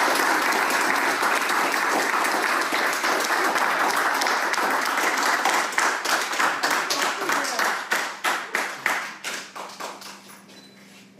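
A small group applauding: steady clapping that thins to scattered single claps after about six seconds and dies away near the end.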